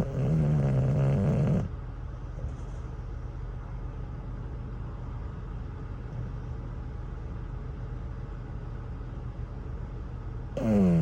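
English bulldog snoring in its sleep: one loud snore ends about a second and a half in, and the next starts near the end. Between the snores there is a steady low hum of idling engines.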